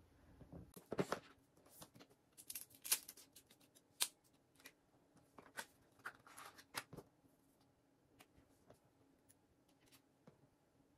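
Small clicks and scrapes of an iPhone being handled while a SIM card is fitted, its SIM tray being worked in and out. The clicks come thick for the first seven seconds, then thin out to a few faint ticks.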